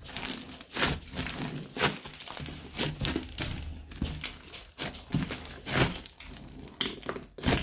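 Hands squishing, pressing and folding a thick clay slime mixed with beads, giving a dense run of irregular sticky crackles and clicks.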